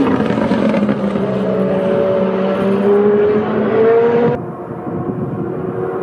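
Super Formula cars' 2.0-litre turbocharged four-cylinder engines running on track, one pitch falling and another rising as a car accelerates. The sound drops suddenly about four seconds in.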